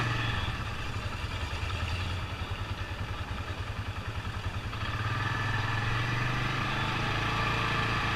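Polaris 570 EFI UTV's single-cylinder engine running with a pulsing low note, the throttle opening up about five seconds in so that it runs louder and steadier.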